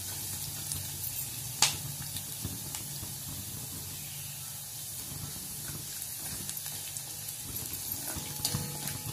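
A tempering of peanuts, green chillies and curry leaves sizzling in hot oil in a steel kadhai while a wooden spatula stirs it, with a steady hiss. A sharp knock of the spatula against the pan comes about a second and a half in, and a few lighter taps follow.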